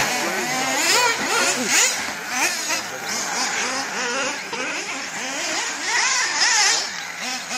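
Motors of several radio-controlled race cars, their whines rising and falling in pitch as they speed up and slow down around the track, overlapping one another.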